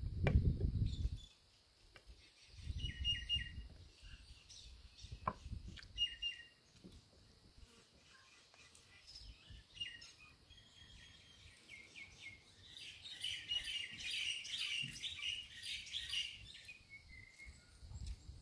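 Small birds chirping in short repeated calls, thickening into a dense run of chirps near the end. Three low rumbles, the first the loudest, come in the first few seconds.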